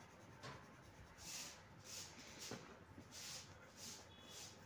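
Faint scratching of a coloured pencil on paper: short, light shading strokes several times a second, with a couple of soft clicks.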